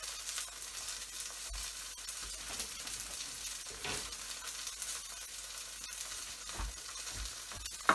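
Thin bánh xèo rice-flour crêpe frying in oil in a wok, a steady soft sizzle, as the lacy crêpe is left to turn golden and crisp. A few faint low thumps are heard, and a short click near the end.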